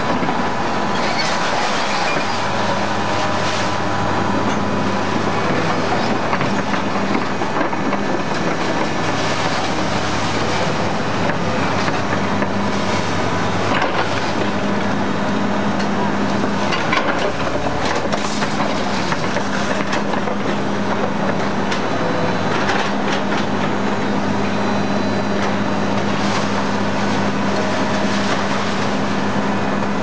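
Y81-1600 hydraulic metal baler running: a steady machine hum under dense mechanical noise, with scattered metallic clanks and knocks as compressed scrap is pushed out of the chamber as a bale.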